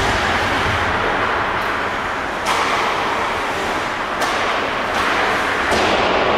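Ice hockey play: skate blades scraping the ice in a steady hiss, broken by a few sharp knocks from sticks, puck or boards, over a faint steady hum of the rink.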